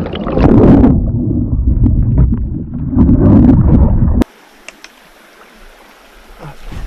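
Water splashing and churning over a kayak-mounted camera as the kayak capsizes and the camera goes under: a loud, low rumbling slosh with scattered knocks. About four seconds in it cuts off suddenly to faint river ambience.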